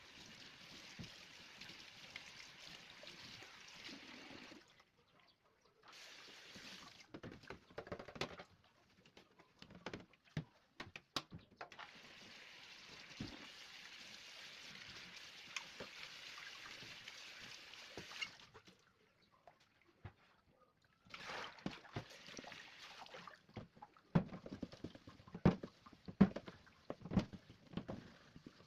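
Tap water running into a sink in several spells, with dishes and utensils clinking and knocking in between; the clatter is loudest and busiest near the end.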